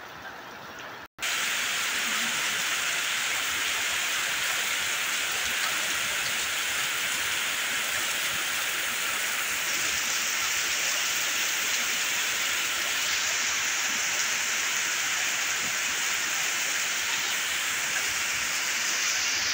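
Heavy rain pouring down steadily as a dense, even hiss. About a second in the sound drops out for an instant and comes back louder.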